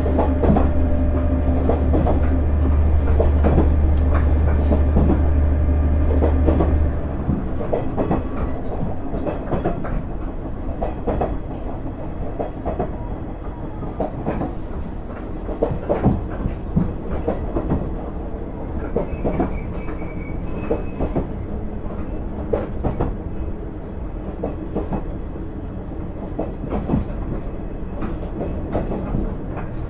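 KiHa 110 diesel railcar running up a steep grade under engine load. A strong low engine drone drops away about seven seconds in, leaving wheel rumble and an irregular clatter of wheels over rail joints.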